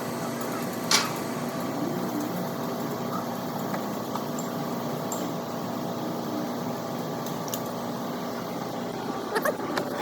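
Steady mechanical hum carrying a few faint steady tones, with a sharp click about a second in and a few more clicks near the end.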